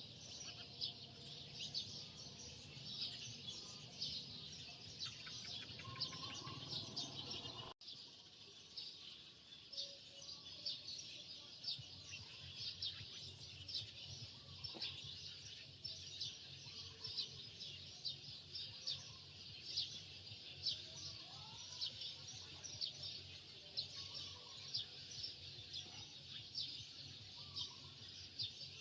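Many birds chirping constantly in quick, overlapping chirps, with a few short calls sliding in pitch. The sound cuts out for an instant about eight seconds in.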